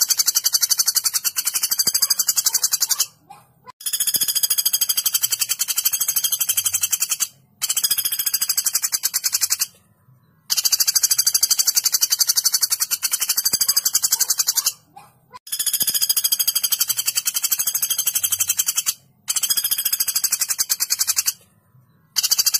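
Common flameback woodpecker giving its long, sharp rattling call: runs of very rapid repeated notes, each two to four seconds long, broken by short pauses, about six runs in a row.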